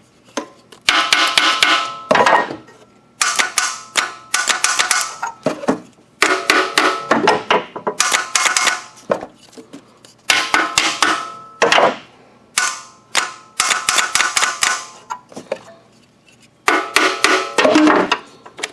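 A small jeweler's hammer tapping on a car's starter motor in quick bursts of several strikes, each ringing like struck metal, about eight bursts with short pauses between. The starter is being knocked on because it is sticking, and looks to need replacing.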